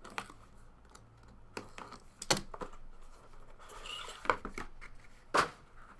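Hands opening a sealed box of trading cards: cardboard and wrapper rustling, with about five sharp clicks and snaps spread through.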